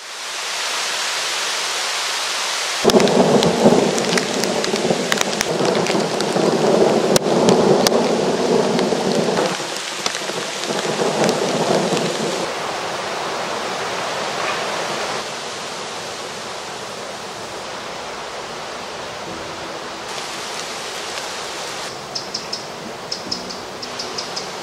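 Steady rain falling on leaves, with a long, low roll of thunder from about three seconds in that fades out by about twelve seconds. Near the end, a small bird gives short, high, repeated calls.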